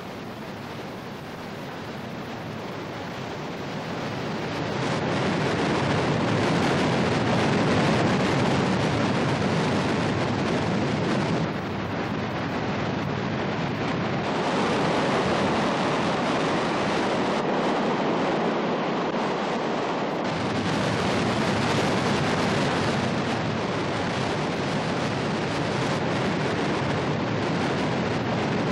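Water rushing uncontrolled out of a failed dam spillway gate: a dense, steady rush that swells over the first few seconds and then holds, with a brief dip near the middle.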